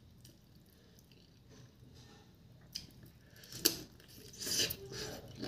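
Close-up eating sounds: a person biting and sucking at a cooked chicken foot eaten by hand, with wet mouth noises and short sharp clicks, the loudest click about three and a half seconds in. The first couple of seconds are quiet.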